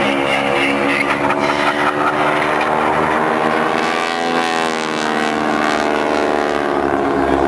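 Propeller engines of two wingwalking biplanes flying in close formation, a loud steady drone whose tone bends about halfway through as the pair passes close by.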